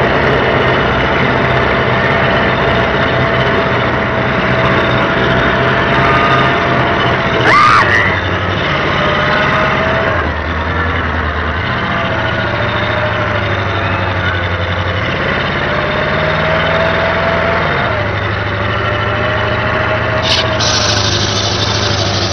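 Tracked military vehicle driving, its engine running with a drone whose pitch steps up and down several times as it changes speed, and a thin wavering whine above it. A brief knock about seven and a half seconds in.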